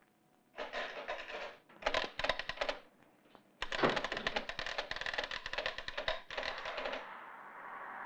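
Bursts of rapid mechanical clicking and rattling, three runs, the last and longest about three seconds, like a printer or recording instrument chattering. Near the end a steady rushing noise takes over.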